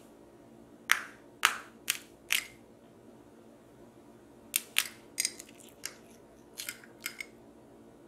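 Metal spoon tapping and cracking the hard caramelized sugar crust of a crème brûlée: four sharp cracks in the first few seconds, then a second run of crackles about halfway in as the spoon breaks through the crust.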